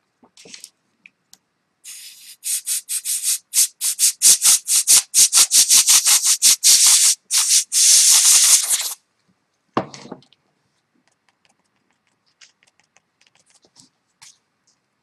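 A fast run of rubbing strokes against the drawing paper, about four or five a second for some seven seconds, followed by a single knock about ten seconds in.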